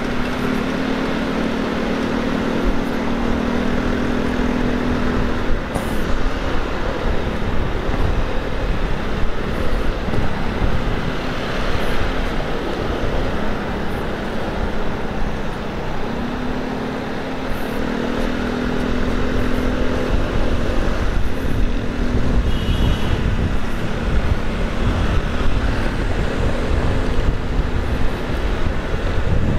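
Road traffic noise heard while riding along a busy city avenue, with wind rumbling on the microphone and a vehicle engine droning at a steady pitch for a few seconds at a time.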